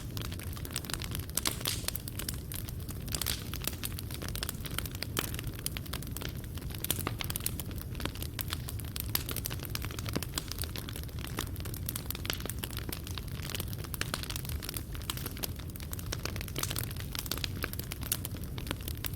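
Wood fire burning in a fireplace, crackling and popping in frequent irregular snaps over a low, steady rumble of the flames.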